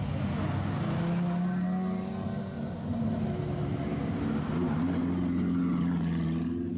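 Supercar engines running at low revs as the cars creep past one after the other: a Lamborghini Aventador's V12, then a Ferrari F430's V8. A steady drone with a brief wavering rise and dip in pitch about halfway through.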